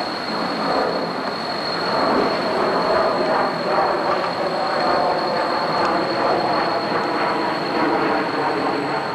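Steady rumbling noise of a moving road vehicle, with a thin, steady high whine over it.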